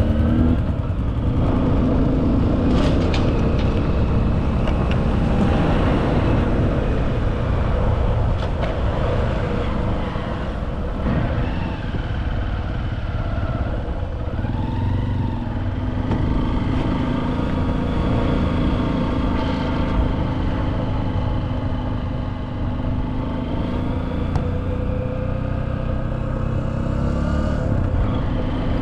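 A motor vehicle running steadily, with a continuous low rumble and an engine note that drifts slowly up and down in pitch.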